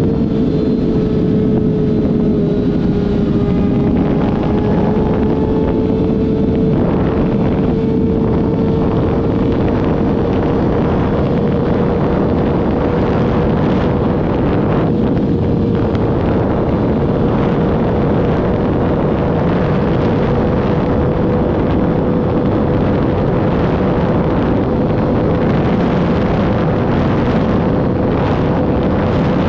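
A vehicle engine droning steadily at one held pitch that slowly creeps up, under heavy wind rush on the microphone.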